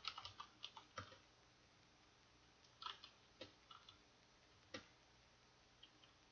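Faint computer keyboard keystrokes: a quick run of key clicks in the first second, then a few scattered single clicks with quiet gaps between.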